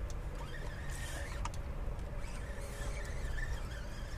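Wind buffeting the microphone: a steady low rumble, with a few faint ticks above it.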